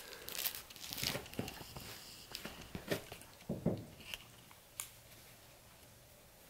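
Labradoodle puppies mouthing and chewing plush toys on a fabric dog bed: a string of rustles, crinkles and small crunches that thins out after about four seconds.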